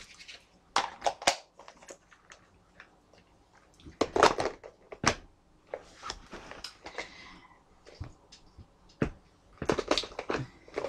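Small clear plastic storage boxes clicking and knocking against each other and their tray as they are handled, in scattered sharp knocks with a louder cluster about four seconds in and more near the end, plus a brief soft rustle in between.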